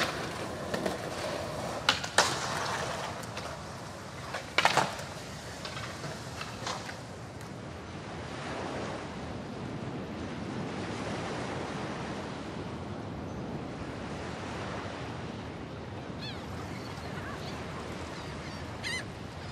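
Skateboard wheels rolling on concrete with sharp clacks of the board about two seconds in and again near five seconds, then the steady wash of ocean surf breaking on a beach. A few short high chirps come in near the end.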